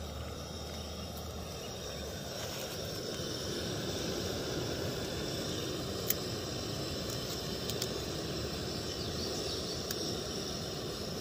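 Steady rushing hiss of a portable canister gas camp stove burning under a pot of simmering meat, with a few faint clicks.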